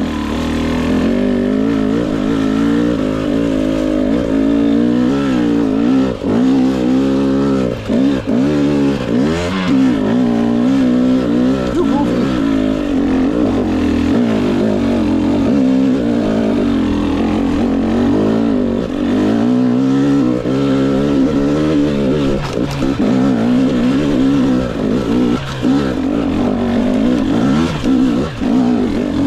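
GasGas EX 250 two-stroke dirt bike engine being ridden hard, its pitch rising and falling continuously with throttle and gear changes, with a few brief dips where the throttle is rolled off.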